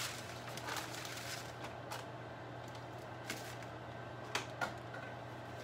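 Parchment paper rustling as it is handled, with a few light taps and clicks, two of them sharper a little past four seconds in. A steady low hum runs underneath.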